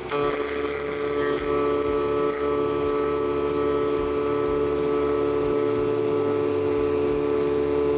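MIG welding arc laying one continuous bead on steel: a steady hiss with a steady hum under it, starting at once and cutting off sharply about eight seconds later.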